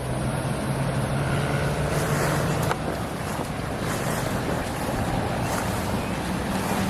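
A steady rushing noise with a faint low hum underneath.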